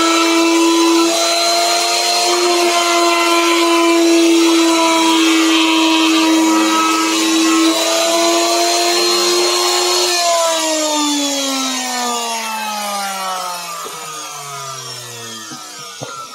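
Handheld electric router cutting a carved pattern into a wooden panel, its motor whining steadily. About ten seconds in it is switched off and the pitch falls away as the motor spins down, with a light knock near the end.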